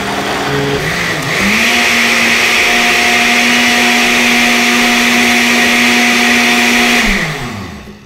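Countertop blender motor running, whipping a thick mix of condensed milk and cream cheese. About a second and a half in it steps up to a higher speed and runs steady, then near the end it is switched off and winds down with falling pitch.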